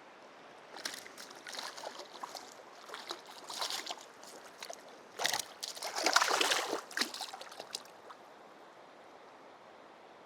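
Splashing and dripping water as a hooked bass is reeled in and landed at the side of a kayak. The splashes come in irregular bursts, loudest in a stretch around the middle, and die away after about eight seconds.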